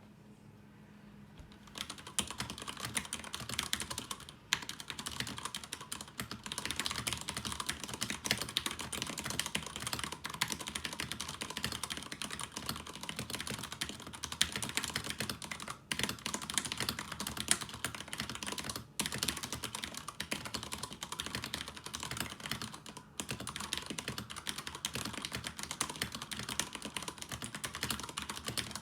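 Durgod K320 mechanical keyboard with stock Cherry MX Brown tactile switches being typed on quickly: a dense, continuous run of key clacks that starts about two seconds in, with a few brief pauses.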